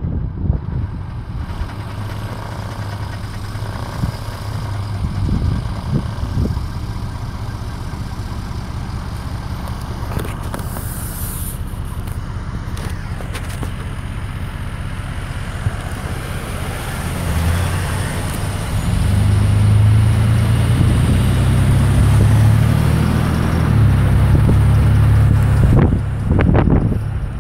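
Car driving along a street, heard from inside with the window open: steady road rumble mixed with wind buffeting the phone's microphone. It grows louder about two-thirds of the way through.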